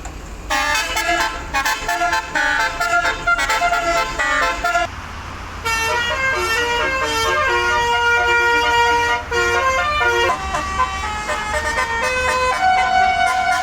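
Indonesian bus 'basuri' telolet horn playing a melody: a quick run of short notes for the first few seconds, a brief pause, then longer held notes, with a bus engine running underneath.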